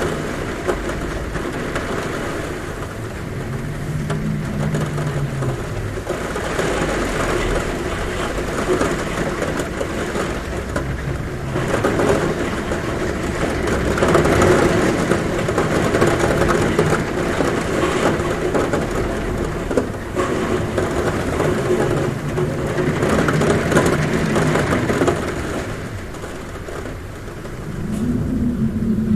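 Heavy rain drumming steadily on a roof, with wind moaning in low tones that rise and fall, swelling for a while in the middle and easing near the end.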